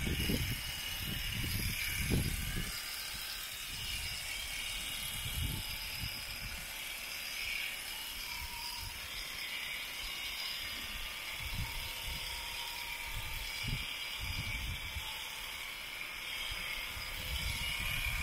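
Electric alpaca-shearing handpiece running steadily with a high whir, with low rumbling bursts in the first two to three seconds and a few more later on.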